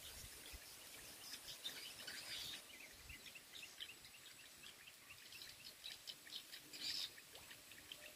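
Small birds chirping faintly in many quick, short calls, with louder calls about two and a half and seven seconds in. A faint steady high-pitched whine sounds beneath them.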